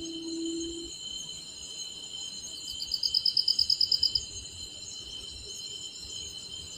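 Night chorus of crickets chirring steadily on several high pitches, with a rapid pulsed trill from a nearer insect for about a second and a half, starting a little under three seconds in. A short low steady hum at the very start.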